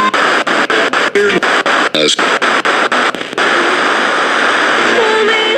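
Heavy radio static hiss with rapid crackling clicks, a weak weather-radio announcer's voice breaking through faintly in short fragments. This is a poorly received broadcast signal.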